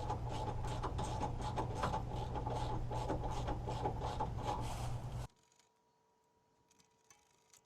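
Socket ratchet clicking in irregular runs as bumper bolts are worked loose, over a steady low hum. It cuts off abruptly a little past five seconds in.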